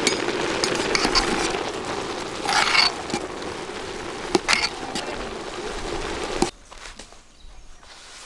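Cooked rice in a metal pot being stirred and scooped with a metal ladle: a steady crackling scrape with a few clinks. It cuts off suddenly about two seconds before the end.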